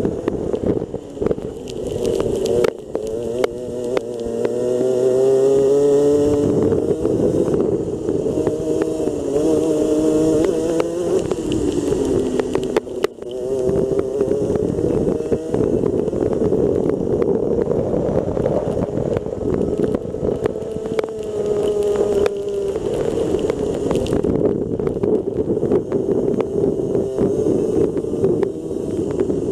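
Rotax Max 125cc single-cylinder two-stroke kart engine, heard onboard, revving up and falling away again and again as the kart lifts off for corners and accelerates out of them.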